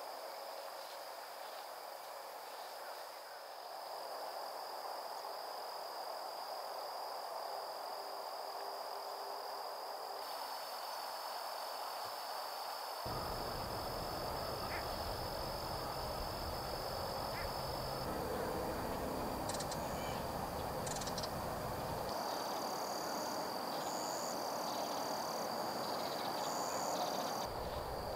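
Insects droning steadily at one high pitch over a broad outdoor hiss, with a low rumble that starts and stops abruptly a few times.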